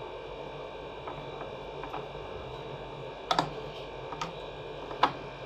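Scattered sharp clicks and light taps from fitting the plastic handle of an electric pressure washer and turning its screws in with a hand screwdriver, over a faint steady hum. The clearest clicks come in the second half, three in under two seconds.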